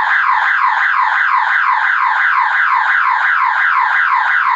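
Building fire alarm sounder going off: a loud electronic warble of rapid rising sweeps, about four a second, sounding continuously.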